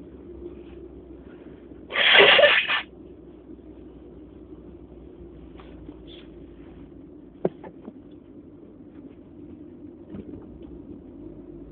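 One loud sneeze about two seconds in, part of an allergy sneezing fit, over a steady low background hum; a single sharp click follows a few seconds later.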